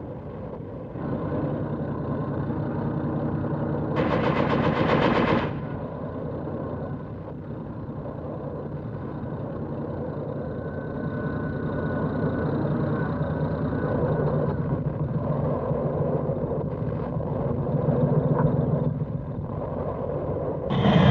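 Tank engines running as the tanks move across open ground: a steady low hum. A louder, harsher burst comes about four seconds in and lasts over a second.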